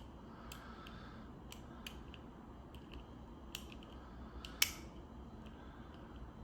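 Scattered small metallic clicks and ticks of a lock pick and tension wrench working the pins inside a Chateau disc padlock, with one louder click about four and a half seconds in.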